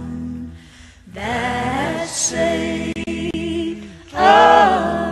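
Slow gospel-style music with voices singing in harmony over held low notes, in long drawn-out phrases with short breaks between them; the loudest phrase comes in near the end.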